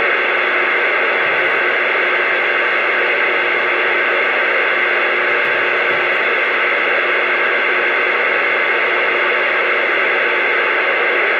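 CB radio static: a steady, loud hiss from the receiver's speaker between transmissions, with no one keyed up.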